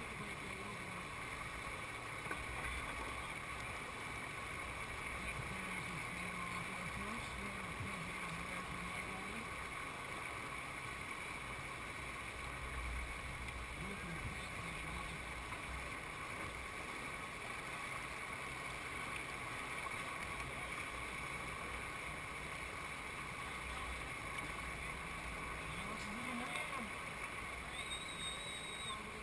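Steady rush of whitewater pouring over a rock ledge into a standing wave close by. A brief high tone sounds near the end.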